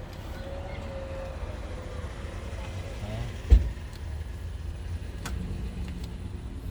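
A single sharp knock about three and a half seconds in, with a few faint clicks later, over a steady low rumble. These are the sounds of parts and tools being handled while a car door's latch assembly is reinstalled.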